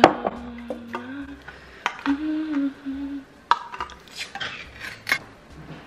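A person hums a few low notes, then a ring-pull food can is opened: a sharp click as the tab pops about three and a half seconds in, a scraping tear as the metal lid peels back, and a last click about five seconds in.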